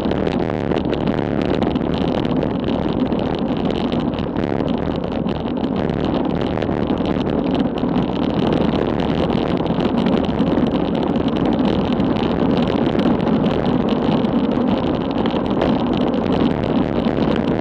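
Wind rushing over a bicycle-mounted action camera's microphone, with tyre noise on asphalt, as a road bicycle descends at about 20 to 35 mph. It is a loud, steady noise that grows a little louder in the second half as speed rises.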